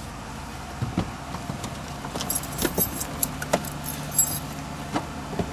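Metal jingling and clinking, like keys or handcuffs, with a few dull knocks, as a handcuffed man is put into the back seat of a police car. A steady low hum sets in about halfway through.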